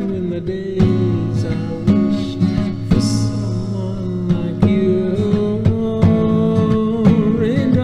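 Background music: a song led by strummed acoustic guitar.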